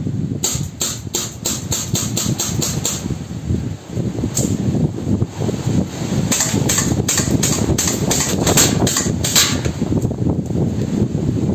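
CO2-powered broom handle Mauser replica BB pistol firing: a quick string of shots, about four a second, then a single shot, then a second quick string, over steady wind buffeting the microphone.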